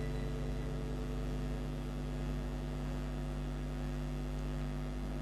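Steady electrical hum, low and unchanging, made of a stack of evenly spaced tones.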